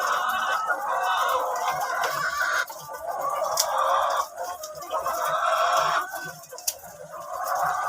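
A flock of ready-to-lay pullets clucking together in a dense, continuous chorus, easing off briefly twice, with a couple of sharp clicks.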